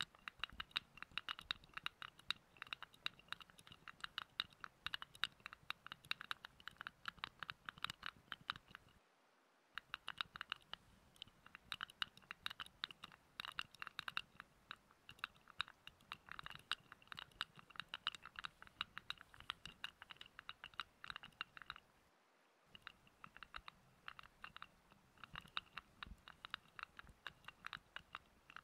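Close-miked fingertip scratching and rubbing, rapid and continuous, as in ASMR massage sounds. It stops briefly twice, about nine seconds in and about twenty-two seconds in.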